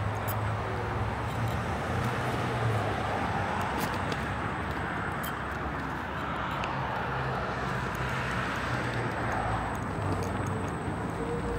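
City road traffic: a steady rush of cars going by, with a low engine hum and tyre noise that swells slowly in the middle.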